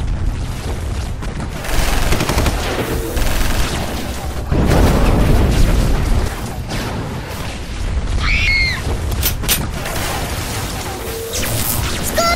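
Film-style battle sound effects: dense gunfire and explosions over a dramatic music score, heaviest about five seconds in.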